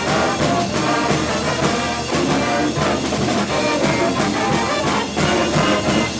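A brass pep band playing with drums, a full ensemble sound with a steady beat.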